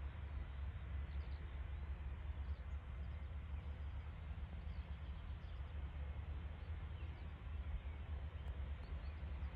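Steady low outdoor rumble, like wind on the microphone or distant traffic, with faint scattered bird chirps.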